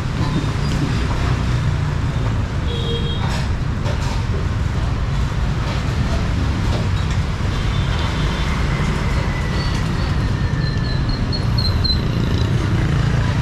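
Steady traffic noise from motorbikes and cars passing on a busy city road.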